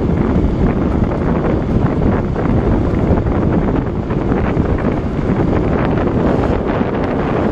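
Loud, steady wind buffeting on the microphone of a handlebar-mounted camera on a bicycle descending at about 50 km/h.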